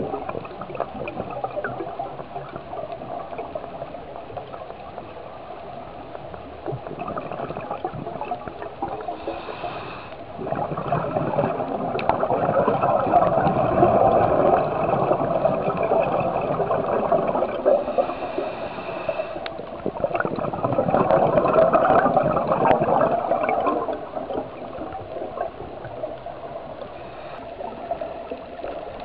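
Underwater water noise, gurgling and bubbling with scattered clicks. It swells louder for several seconds twice, about ten and twenty seconds in.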